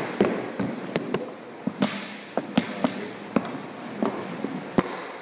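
A hockey puck being shot off a stick and knocking against the goalie's stick, pads and the boards: a run of sharp clacks and knocks at an uneven pace, several in some seconds.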